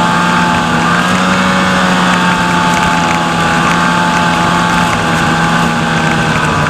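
Snowmobile engine running at a steady cruising speed, its pitch rising and falling slightly.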